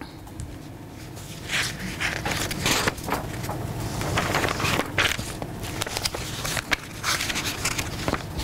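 Irregular rustling and handling noises with light knocks, as sheets of paper are handled close to the microphone.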